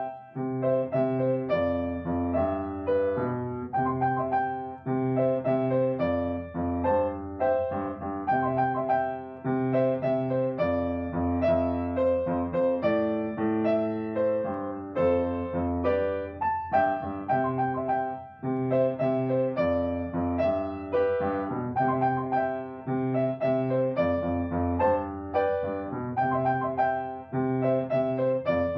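Instrumental piano music: a steady flow of notes over low bass notes, each held for a few seconds.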